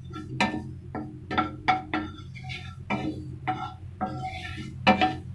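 Wooden spatula tapping and scraping against a nonstick pan while curry leaves are dry-roasted: an irregular string of short ringing knocks, two to three a second, over a low steady hum.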